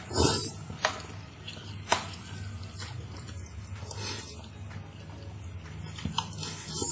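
Wet eating sounds of a person eating fried instant noodles and stir-fried land snails: a short slurp near the start and another near the end, with a few sharp mouth clicks and smacks in between.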